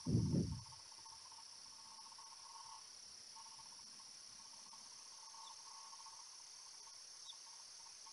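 Faint, steady chorus of night insects, with a high continuous trill and a lower pulsing trill that breaks off and comes back. A brief low thump opens it.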